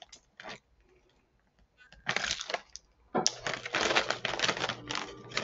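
Plastic snack bag crinkling as it is handled and pulled open: a few short crackles about two seconds in, then continuous crinkling from about three seconds in.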